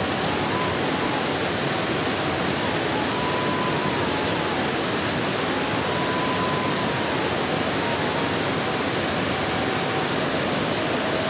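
Small waterfall pouring into a rocky river pool: a loud, steady rush of falling water.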